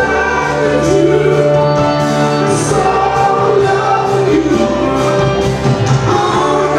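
Live rock band playing a song, with guitars, bass and drums under a sung vocal.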